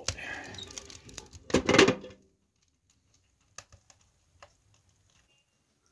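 A cast-iron Dutch oven being dragged out of a wood stove's firebox: metal scraping and clunking for about two seconds, loudest near the end. Then near silence with a few faint clicks.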